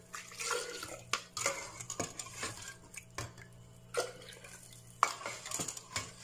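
A cup scooping milky ice-cream base out of a metal bowl and pouring it into a blender jar: scraping and sloshing with scattered clinks and knocks of the cup against the bowl, the sharpest about five seconds in.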